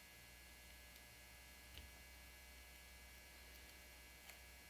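Near silence: a steady low electrical hum, with two faint small clicks, one near two seconds in and one near the end, from a small screwdriver working the revolver's side-plate screws.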